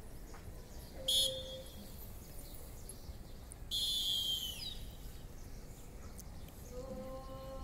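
Two blasts on a pea whistle: a short one about a second in and a longer one around four seconds in whose pitch drops as it ends. Near the end a steady droning tone with a few overtones begins.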